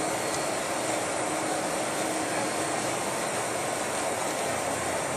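Steady cabin noise inside a Boeing 747-400 taxiing, its four GE CF6-80C2B1F jet engines running at low taxi power.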